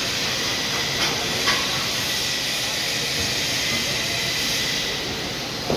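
Stick welding arc burning with a steady crackling hiss and a few small pops.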